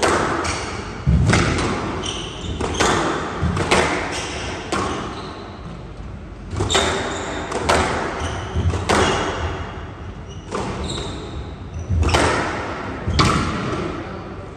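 A squash rally: the ball struck by rackets and smacking off the court walls roughly once a second, each hit ringing briefly in the hall, with short high squeaks from the players' shoes on the court floor between shots.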